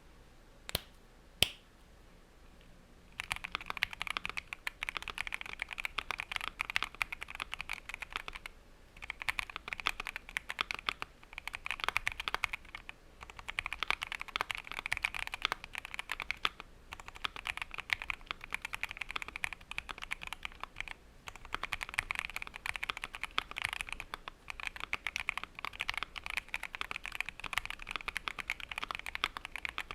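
Keychron Q1 mechanical keyboard with a polycarbonate plate, Everglide Aquaking V3 linear switches and thick double-shot ABS keycaps being typed on. It is modded with a silicone sheet and PE foam and has no tempest tape. Two single keystrokes come near the start, then fast continuous typing from about three seconds in, with a few brief pauses.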